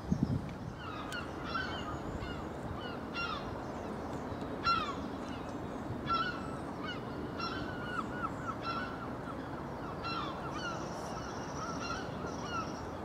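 Repeated short, high chirping animal calls, one every half-second to a second, over a steady background hiss. A dull thump sounds right at the start.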